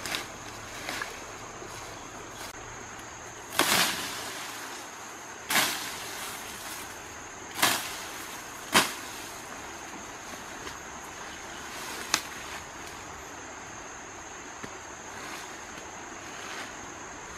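Hands digging and scraping at soil and dry leaf litter in grass, with about five short loud rustling scrapes, the longest about four seconds in. A steady high-pitched insect drone runs underneath.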